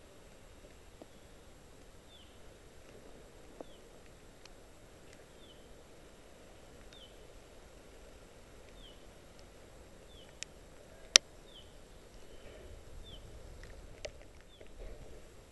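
A bird repeating a short, falling chirp about once a second. About eleven seconds in there is a single sharp click, the loudest sound, with a fainter one just before it. Rustling movement noise follows near the end.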